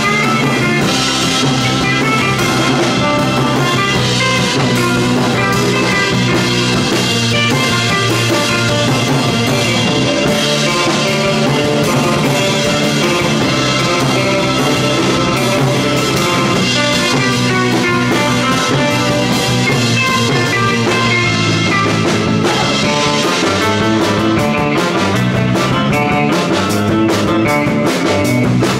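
Surf rock band playing live: electric guitar over bass and a drum kit.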